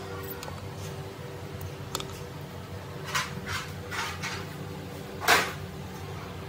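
Metal parts being handled on a workbench: a few short scrapes and clinks, the loudest about five seconds in, over a steady low hum.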